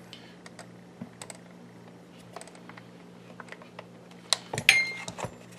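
Light clicks and scrapes of a small screwdriver and a twist-lock bulb socket against the plastic back of a car climate control panel as a bulb is worked into its socket, sparse at first and louder and busier near the end.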